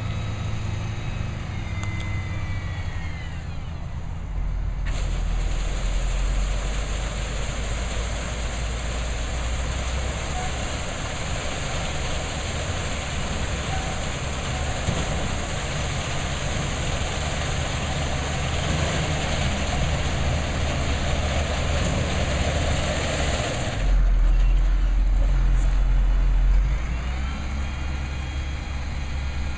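Cotton module truck's engine running under load as the truck takes on a round cotton module with its walking floor, engine pitch rising and falling at the start and again near the end. A loud steady hiss covers most of the middle, and a deeper, louder engine surge comes a few seconds before the end.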